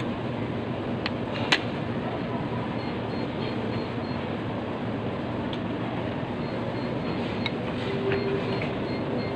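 Steady restaurant background noise, an even rushing din, with a few sharp clinks of a metal spoon against a bowl, the loudest about a second and a half in.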